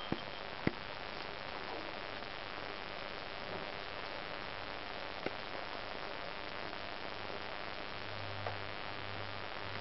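Guinea pigs chewing raw carrot, cucumber and apple pieces, a few sharp crunches standing out over a steady hiss.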